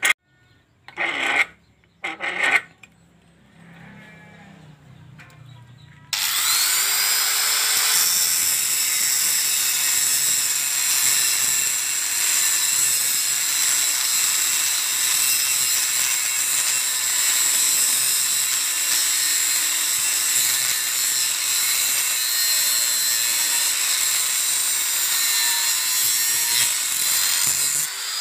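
A few sharp knocks, then about six seconds in an angle grinder starts cutting into a hardened steel ball-bearing race clamped in a vise: a loud, steady grinding that holds until it stops near the end.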